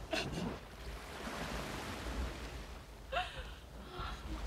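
Sea washing on a rocky shore as a steady hiss, with a few short vocal sounds near the start and again about three seconds in.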